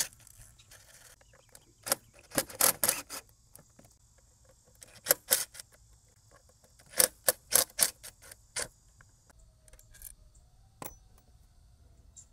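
Cordless DeWalt power driver with a 5 mm hex bit, run in about a dozen short trigger pulls, some in quick clusters, to back out the hex bolts of an engine cover, with metallic rattling.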